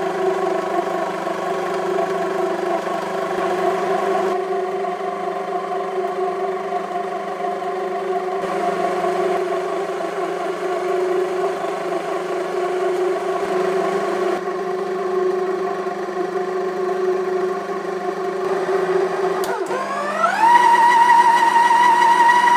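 Homemaker 450-watt planetary stand mixer running steadily, its motor humming as the beater works a flour mixture in the stainless steel bowl. About 20 seconds in the speed is turned up and the motor's pitch rises over a second into a higher, steady whine.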